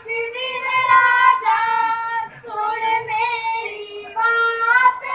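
Women singing a high-pitched Punjabi folk song (giddha boliyan) through a stage PA, in sung phrases about a second long with short breaks between them.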